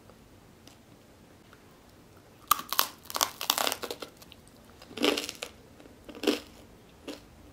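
Crunching bites and chewing of toasted walnut bread crust: a dense run of crunches a couple of seconds in, then three separate crunches.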